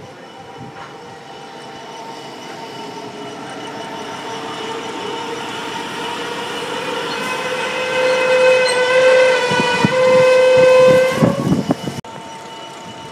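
A train's rumble builds steadily as it comes closer. Then a train horn sounds two long blasts on one steady pitch, about eight and ten seconds in, over the knock of wheels on rail joints. The sound cuts off suddenly near the end.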